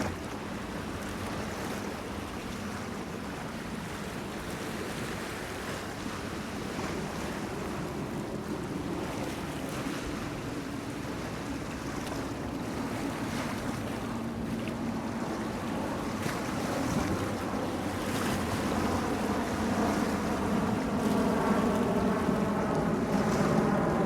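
Waves washing against a pier in the wind, with a boat's engine hum growing louder through the second half.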